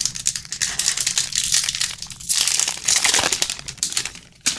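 Trading card pack wrapper being torn open and crinkled by hand, an irregular crackling in several surges that ends with a sharp snap near the end.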